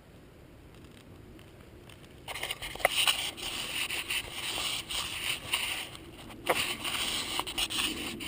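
Rustling and crackling of brush and dry leaves, with a few sharp snaps, as someone moves through the undergrowth. It starts suddenly about two seconds in, after a near-quiet stretch.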